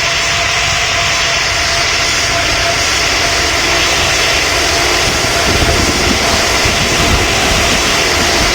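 Airplane engines running loud and steady, a steady whine over a broad roar, with a deeper rumble building in the second half.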